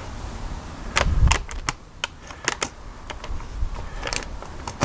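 Paper-wrapped brisket being prodded and handled on a smoker rack: scattered sharp crinkles and clicks, with a dull thump about a second in.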